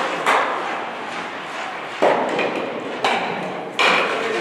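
Four sharp knocks of ice stocks striking the court and each other, each ringing on in the reverberant hall.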